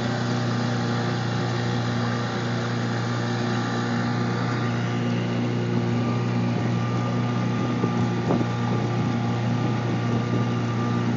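A small boat's motor running at a steady speed, a constant low drone, with water rushing and splashing along the aluminium hull.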